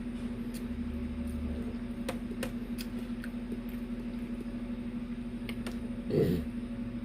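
Eating sounds: a few scattered soft clicks and mouth sounds from someone eating oxtail, greens and rice, over a steady low hum. About six seconds in there is a brief voiced murmur.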